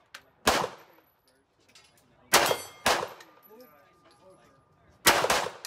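HK P2000 9mm pistol fired five times: one shot, then a pair about half a second apart, then another quick pair near the end. Steel plate targets ring with a metallic clang as they are hit, and one thin ring hangs on for about two seconds after the third shot.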